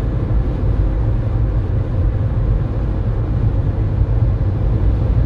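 Steady low rumble of a car's engine and road noise inside the cabin, with a faint steady hum above it.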